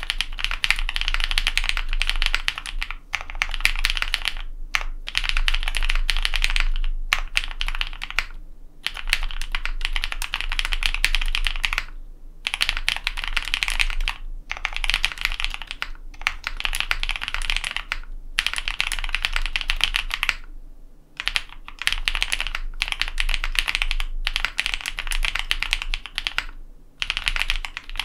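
Fast typing on a Matrix ME SE custom mechanical keyboard with an aluminum plate, lubed linear Cherry MX Black switches and GMK keycaps: a dense run of key clacks in bursts of one to three seconds, broken by short pauses.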